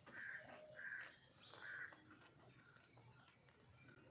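Near silence: faint outdoor background, with a few soft, short sounds in the first two seconds.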